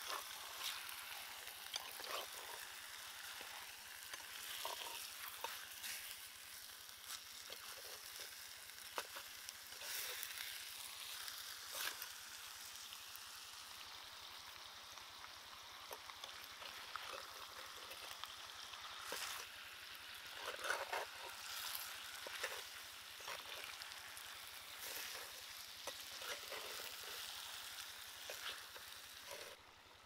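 Catfish steaks sizzling in hot oil and chili paste in a clay pot, a steady hiss with scattered crackles. A utensil scrapes and knocks against the pot now and then.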